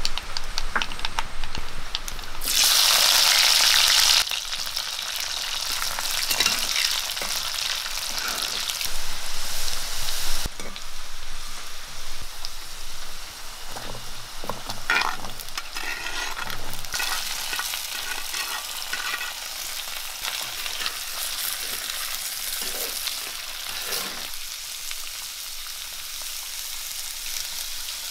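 Food frying in hot oil in a metal kadai: a loud burst of sizzling about two seconds in as ingredients hit the oil, then a steady sizzle broken by the clicks and scrapes of a spoon. Raw potato sticks go into the pan partway through, and the sizzle is quieter by the end.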